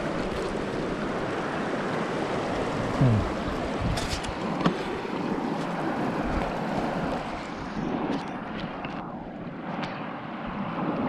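Shallow, rocky stream running steadily, with a couple of sharp knocks about four to five seconds in.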